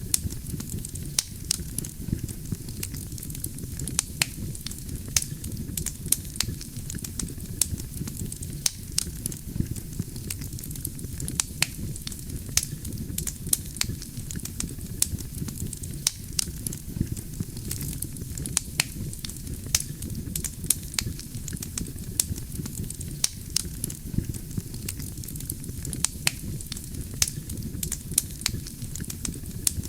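Campfire of burning wood crackling, with frequent sharp, irregular pops and snaps over a steady low rumble of flames.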